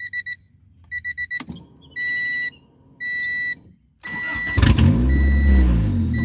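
Dashboard warning chime beeping, then a 1994 Honda Civic DX's four-cylinder engine cranking and catching about four seconds in on its first start after a fuel pump replacement. It runs loud with rising and falling revs, the chime still beeping about once a second. The car has an exhaust leak.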